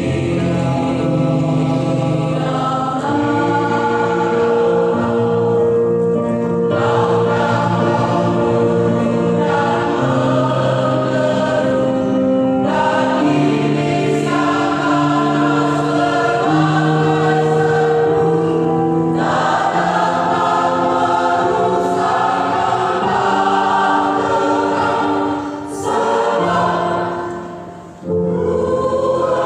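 Church choir singing in harmony, holding long chords that change every second or two. Near the end the singing fades and breaks off briefly, then comes back in.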